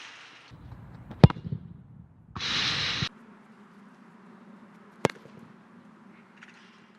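Sharp hits of a football being struck and ringing off a goal's metal crossbar: a loud crack about a second in with a few smaller knocks after it, and another crack about five seconds in. Two short bursts of hiss, near the start and around two and a half seconds in.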